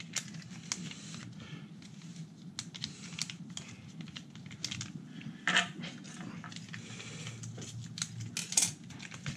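Small plastic packet holding roof-rack lock keys crinkling and rustling in the hands, with light scattered clicks of the keys and plastic, and a couple of sharper scissor snips near the end as the packet is cut open.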